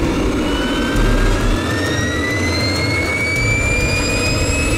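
KingTech K-310G model jet turbine spooling up in its start sequence: a high whine climbing steadily in pitch over a low rumble.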